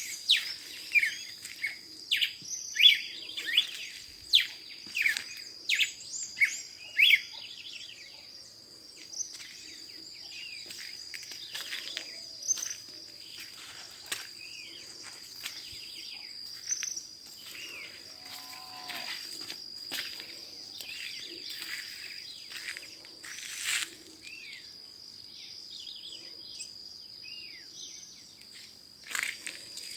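Several wild birds chirping and calling in quick, falling notes, busiest in the first several seconds and more scattered afterwards, over a steady high-pitched insect drone.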